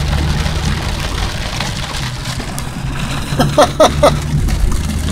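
Car cabin noise while driving through heavy rain on a flooded road: a steady low engine and road hum under the hiss of rain and tyre spray. A short laugh from the driver comes about three and a half seconds in.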